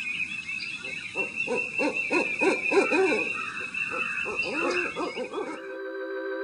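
Owl hooting in a long series of rising-and-falling calls over a steady high tone, then giving way about five and a half seconds in to a sustained musical chord.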